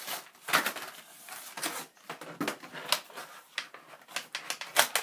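Toy packaging being handled: a plastic blister pack and a cardboard box crackling and knocking in irregular bursts of handling noise, the loudest knock near the end.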